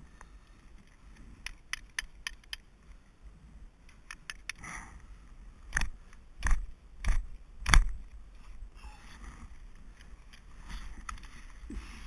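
Ice-climbing gear knocking on waterfall ice: a few light clicks, then four sharp knocks about six to eight seconds in, followed by soft rustling as the climber handles the ice screw and quickdraw.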